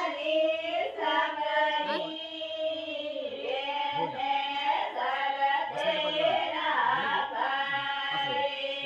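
A group of women singing a Rathwa wedding song unaccompanied, in long held, gliding notes.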